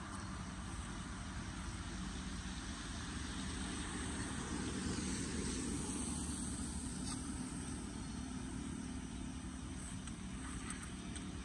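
Steady traffic noise from a wet road, swelling as a vehicle passes about five seconds in, with a few faint clicks.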